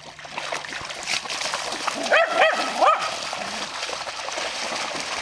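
A dog gives three short, high whining yips about two seconds in, over a steady rush of splashing water.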